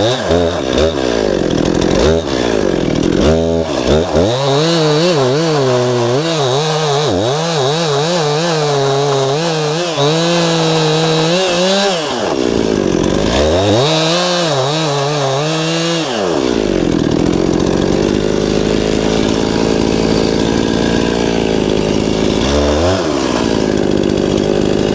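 Two-stroke chainsaw cutting a pine trunk, its engine speed rising and dropping repeatedly under load, then settling to a steadier, lower running about two-thirds of the way through, with one brief rev near the end.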